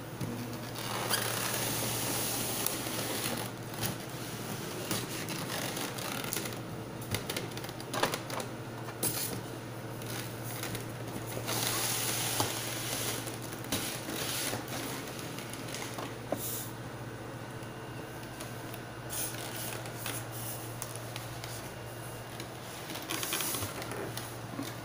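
Printer packaging being handled and unpacked: irregular rustling and crinkling with scattered clicks and knocks, over a steady low hum.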